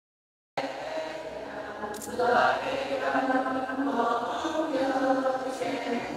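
Church choir singing a liturgical hymn in held, chant-like notes. The sound comes in about half a second in, after a brief dead-silent dropout.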